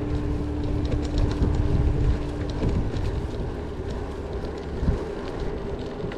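Wind buffeting the microphone of a handlebar-mounted camera on a moving bicycle, a dense low rumble mixed with road noise and light rattling ticks.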